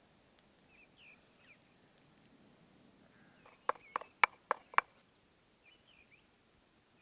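Wooden pestle pounding in a wooden mortar: five sharp knocks in quick succession, about four a second, a little past the middle. Faint bird chirps before and after.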